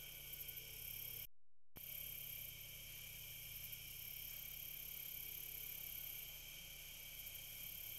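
Faint, steady insect chorus high in pitch over hiss and a low hum, cut off by a dead-silent gap of under half a second about a second in.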